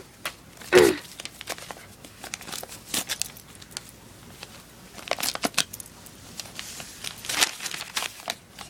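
Paper rustling and crinkling in short, scattered bursts, with a brief squeak that falls in pitch about a second in.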